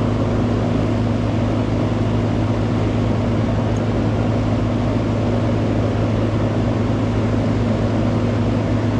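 Outdoor air-conditioning condenser unit running, a steady compressor hum under the rush of the condenser fan.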